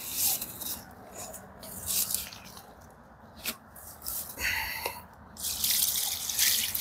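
Water sloshing and pouring from a collapsible bucket in short splashy bursts, the longest pour near the end.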